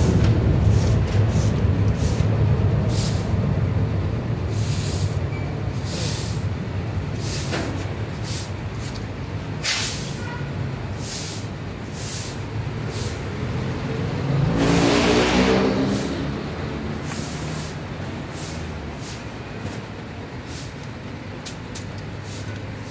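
A low vehicle-engine rumble that gradually fades, with a louder vehicle swelling and passing about two-thirds of the way through. Scattered light clicks run over it.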